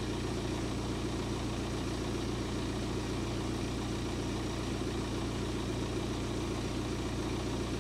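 BMW 1 Series (E82) engine running steadily in gear, driving the jacked-up rear wheel at an even speed; a steady, even hum.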